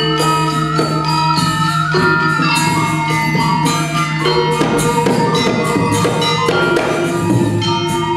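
Balinese gamelan playing: bronze metallophones ring out many quick struck notes over a long-held low ringing tone, with kendang hand drums.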